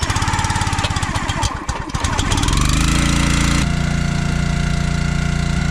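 Small gas engine of a Champion 27-ton log splitter catching and running unevenly for about two seconds, then settling into a steady run.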